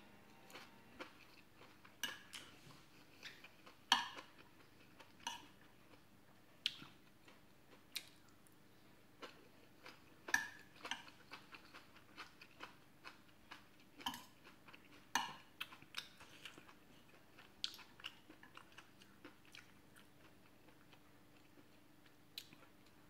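A person chewing a mouthful of stir-fried mushrooms and rice, with short irregular mouth clicks and occasional light clinks of a metal spoon and fork against the plate. The loudest click comes about four seconds in.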